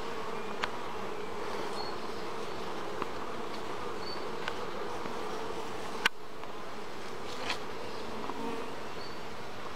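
Honeybees buzzing from an opened hive: a steady, even hum. A few sharp clicks stand out, the loudest about six seconds in.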